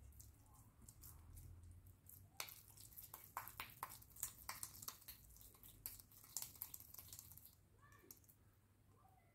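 Faint wet slaps and squishes of raw minced meat being patted between wet hands to shape a cutlet, in a quick run of soft pats from about two seconds in until a couple of seconds before the end.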